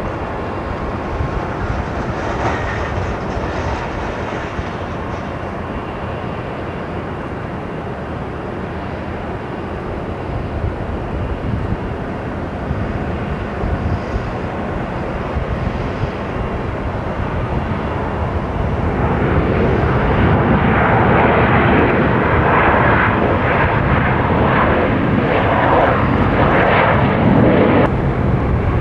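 Jet airliner engines heard from beside the runway, a steady noise that swells about two-thirds of the way through into a louder, crackling jet noise.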